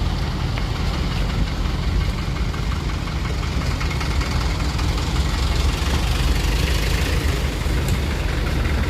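Heavy vehicle's diesel engine running at a steady low rumble, with the even hiss of heavy rain over it.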